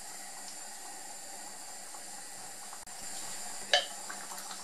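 A pot of split-pea stew simmering on the stove, a steady soft bubbling hiss, with one brief click about three-quarters of the way through.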